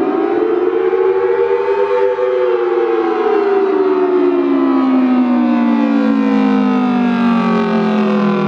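Federal Signal Thunderbolt 1000T siren with 4/5 ports sounding its two-note chord in a wail of the attack signal. It rises, peaks about two seconds in, then winds slowly down in pitch.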